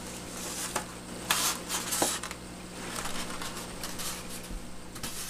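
Packaging being handled during an unboxing: a click a little under a second in, then brief rustles and scrapes about one and two seconds in, over a low steady hum.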